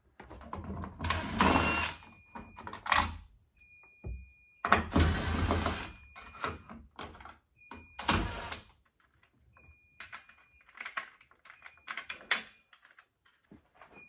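Cordless driver running in three short bursts, backing the screws out of a ceiling smoke detector base, with small clicks of handling in between. A high steady beep sounds on and off several times, typical of a fire alarm panel's trouble sounder after a device has been removed from the circuit.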